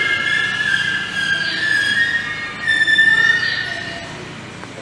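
Train wheels squealing at a station: several high, wavering squeal tones, loudest about three seconds in, then fading away.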